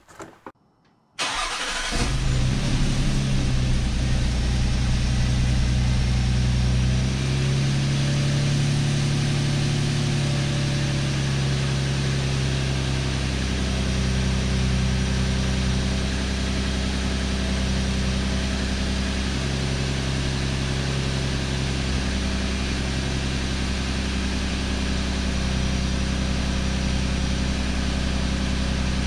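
Audi 3.0T supercharged V6 in a 2017 Q7 cranks briefly and starts about a second in, then runs at a steady idle that drops to a lower speed after several seconds. This is the first start after a Seafoam soak of the pistons, on startup the engine was burning off the solvent.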